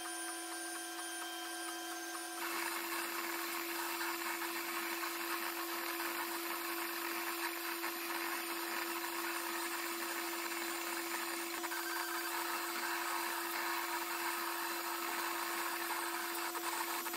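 Snapmaker 2.0 3D printer printing: a steady fan hum, joined about two seconds in by the busier, louder whirring buzz of the stepper motors driving the print head, which then runs on steadily.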